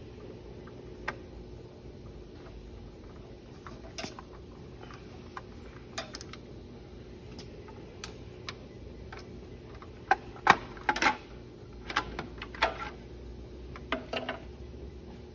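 Scattered clicks and knocks of hands working on an industrial double-needle lockstitch sewing machine while taking off its drive belt, with a run of louder knocks about ten to thirteen seconds in. A steady hum runs underneath.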